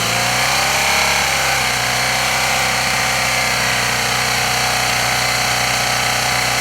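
BMW R 1200 GS air-cooled boxer twin idling through its exhaust, with a slight rise in revs about a second in before settling back to a steady idle.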